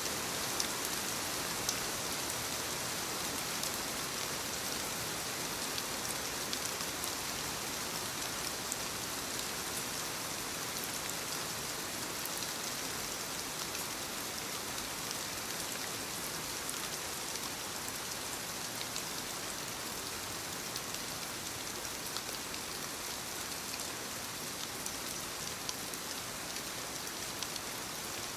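Soft rain falling on leaves: a steady hiss of many small drops, with scattered sharper drop ticks throughout.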